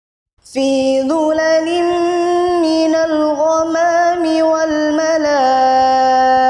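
Woman chanting Quranic recitation (tilawah) in a long, ornamented melodic line, with a steady held note near the end. It starts about half a second in, after a moment of silence.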